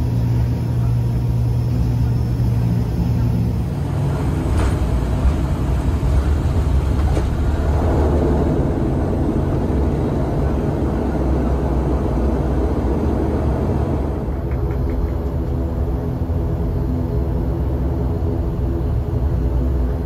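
ATR 72 turboprop engines and propellers heard from inside the cabin through a landing. A short thud comes about five seconds in, at touchdown. A heavier rumble follows during the landing roll, and from about fourteen seconds in a steadier propeller drone takes over as the plane slows.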